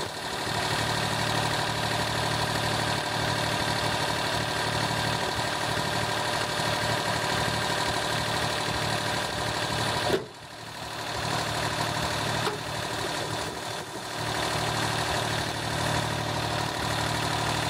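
Compact tractor's engine idling steadily, with a single sharp knock about ten seconds in.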